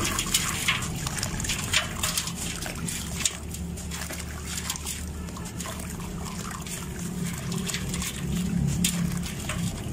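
Dry sand-cement crumbling in the hands and dropping into water in a steel bowl: gritty crunching and crackling with trickling and sloshing water, over a steady low hum.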